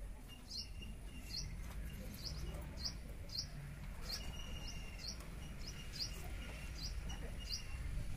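A small bird chirping over and over: short, high, rising chirps about two a second, over a low steady background rumble.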